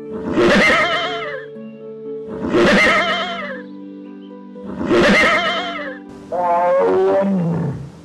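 A horse whinnying: three short, quavering whinnies about two seconds apart, then a longer one that falls steeply in pitch near the end. Soft piano music plays underneath.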